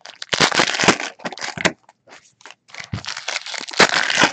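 Foil wrapper of a trading card pack crinkling as it is torn open and handled, in two spells with a short lull between, the louder one near the end.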